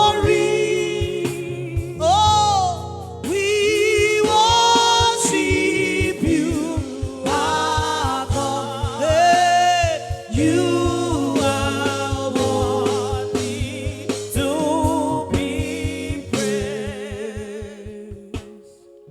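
Gospel music: a voice sings long, wavering melismatic lines over sustained backing and a steady drum beat, fading out near the end.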